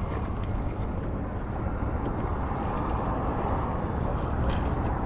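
Steady rumble of road traffic passing on a causeway bridge, a continuous low noise without a break.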